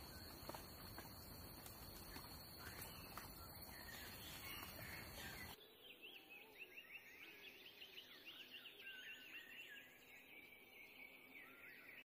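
Faint outdoor ambience of wild birds calling. A low rumbling background and a steady high whine carry a few scattered calls. About five and a half seconds in this cuts abruptly to quieter, rapid twittering songbird chirps.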